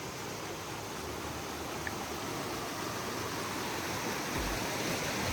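Canyon creek rushing steadily over rocks, slowly growing louder.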